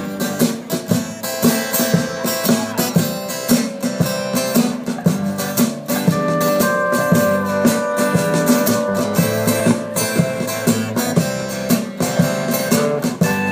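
Live acoustic guitar strumming a steady country-folk rhythm as an instrumental intro, with a lead line of long held notes joining in about six seconds in.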